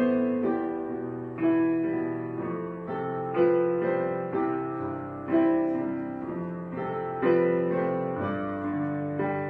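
Background piano music: slow chords struck about every two seconds, each left to ring and fade.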